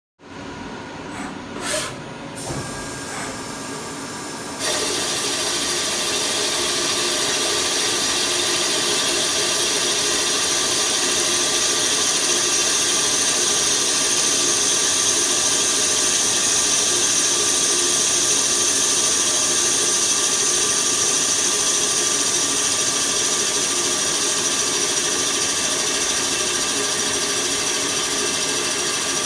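Machine tool cutting the cast-iron cylinder block of a Ford Kent engine, as when boring the cylinders out from 81 mm to 83 mm. It runs more quietly with a few clicks at first, then about four and a half seconds in the cut takes hold and it becomes a loud, steady grinding hiss with a few steady tones.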